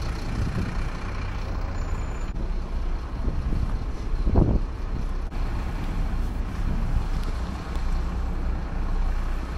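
Steady low rumble of street traffic, with one brief louder thump about four and a half seconds in.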